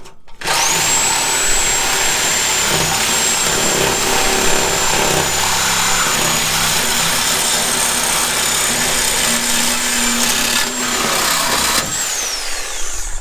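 Reciprocating saw cutting through the steel exhaust pipe to free the old muffler: the motor spins up about half a second in, runs steadily with a high whine over rasping metal-cutting noise, then winds down near the end as the cut finishes.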